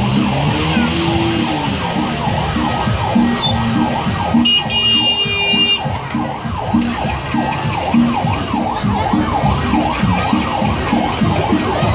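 Several vehicle sirens wailing and yelping at once, their pitches sweeping rapidly up and down over one another, with a regular low pulsing beneath and a short high horn-like tone about five seconds in.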